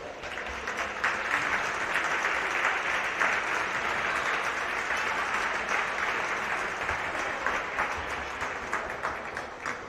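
Spectators clapping, building up over the first second, holding steady for several seconds and fading near the end. It is applause for an injured player being carried off the court.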